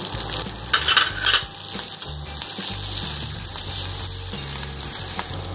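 Green chillies and ginger sizzling in hot ghee in a kadai, with a few scrapes of a metal spatula against the pan about a second in as they are stirred.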